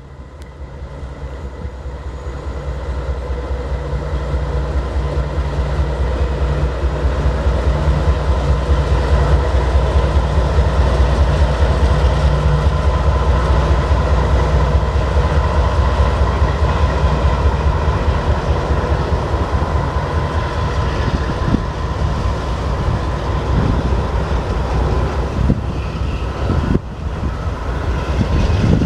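Diesel freight locomotives passing close by, their engine drone swelling over the first several seconds and then holding steady. Later the autorack cars roll past with wheels clicking over the rail joints.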